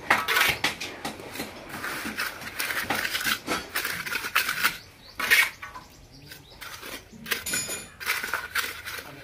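Steel mason's trowel scraping and patting cement-sand mortar onto a concrete floor, with irregular metallic clinks and scrapes.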